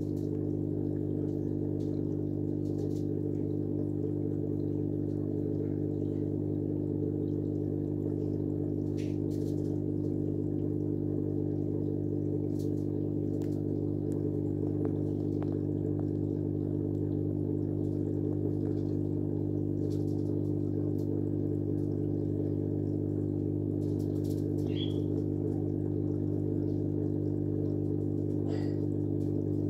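Steady low mechanical hum that does not change, with a few faint clicks.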